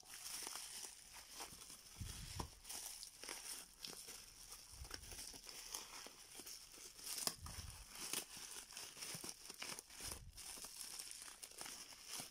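Plastic bubble wrap crinkling and rustling as it is handled and unwrapped, with irregular crackles and a few soft bumps.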